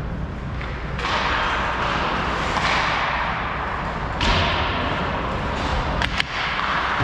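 Ice hockey skates scraping and carving the ice in strokes that start sharply and fade, about a second in and again about four seconds in, with two sharp knocks close together about six seconds in.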